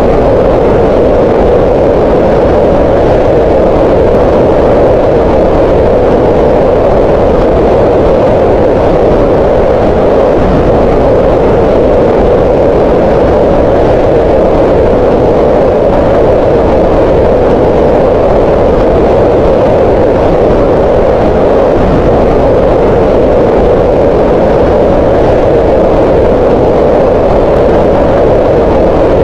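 Green noise: a loud, steady rushing hiss, fullest in the middle of the range, that does not change.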